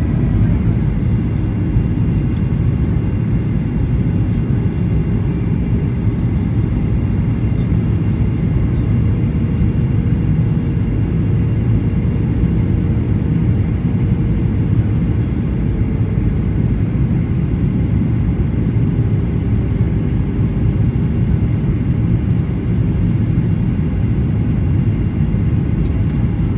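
Steady cabin roar of a Boeing 737-800 airliner in flight on approach, its CFM56-7B turbofan engines and the airflow over the fuselage heard from a window seat over the wing. A faint steady hum sits on top of the deep rumble through the middle.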